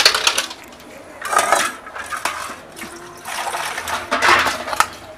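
Water splashing and sloshing in a vessel in three or four short bursts, with a few small clinks, as pieces of gar fish are handled in it.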